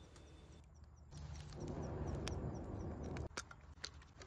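A person blowing one long breath onto the embers of a small twig fire to revive it, a rushing sound that swells about a second in and cuts off abruptly after about two seconds. A few faint clicks follow near the end.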